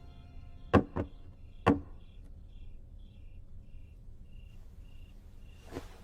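Three sharp thuds in quick succession near the start, the first two close together. Then crickets chirping faintly in short, evenly spaced chirps at night.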